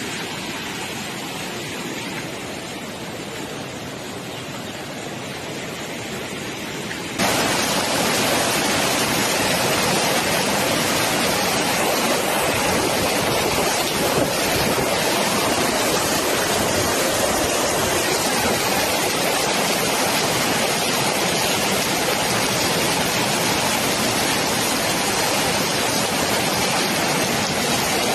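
Rushing floodwater, a steady loud roar of fast-moving water, jumping suddenly louder and brighter about seven seconds in.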